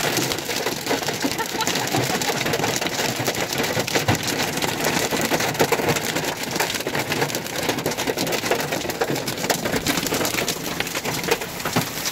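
Hail and heavy rain from a supercell thunderstorm pelting down: a dense, steady clatter of countless small hailstone hits over the hiss of the rain.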